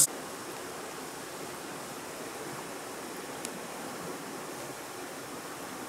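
Steady, even rush of outdoor ambient noise like distant running water, with a single light click about three and a half seconds in.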